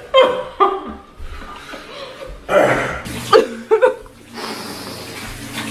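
A man gagging and coughing, then a tap starts running into a sink about four seconds in, a steady rush of water.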